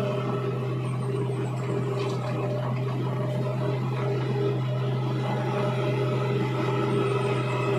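Komatsu 825 motor grader's diesel engine running steadily with a constant low hum while the grader blades wet mud along a haul road.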